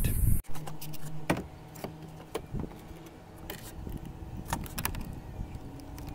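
Scattered light clicks and small rattles of mounting hardware handled in the fingers and a plastic enclosure set against a panel, with a faint low hum in the first couple of seconds.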